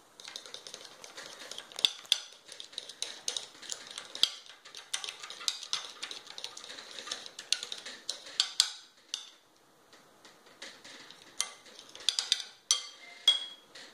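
Fork stirring thick fondant mixture in a glass mixing bowl, the metal tines clinking and scraping against the glass in quick, irregular strokes. The stirring pauses about two-thirds of the way through, then a few sharp clinks come near the end.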